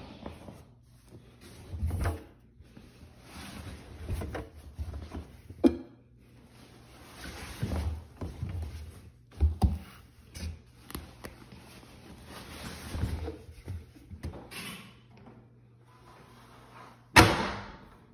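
Clothes rustling and knocking as they are stuffed by hand into the drum of a front-loading washing machine, with a few sharp knocks along the way. About a second before the end comes one loud bang, the washer door being slammed shut.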